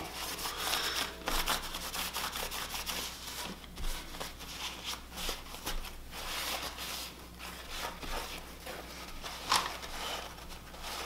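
Blue shop rag wiped back and forth over the metal bed plate of a BMW N54 engine with brake cleaner, an irregular rubbing and scuffing as the sealing surface is cleaned for sealant.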